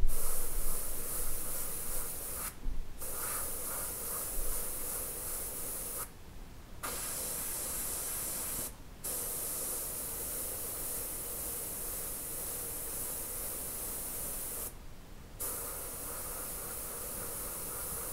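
Airbrush spraying paint in long hissing passes, with four short pauses where the spray stops.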